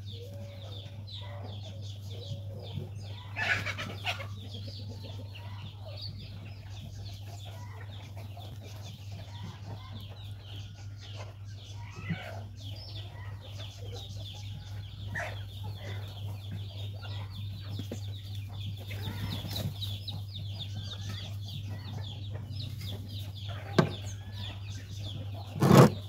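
Background bird calls over a dense high chirping that goes on throughout and a steady low hum. A few short sharp knocks, the loudest near the end.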